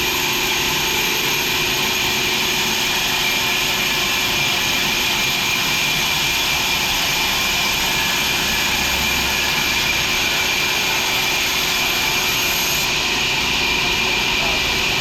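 Sawmill machinery running steadily: a constant hissing mechanical noise with a few faint steady tones underneath, unchanging throughout.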